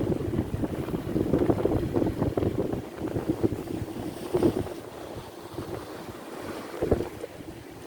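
Gusty wind buffeting the microphone, a low fluttering rumble that rises and falls irregularly.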